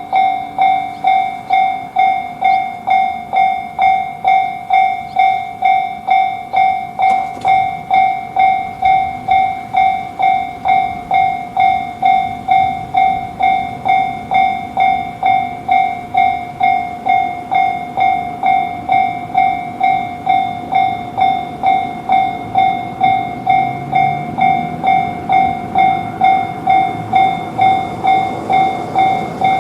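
Japanese railroad crossing warning bell ringing its electronic "kan-kan" tone, about 1.7 strikes a second. Beneath it a train's running noise grows louder in the last few seconds.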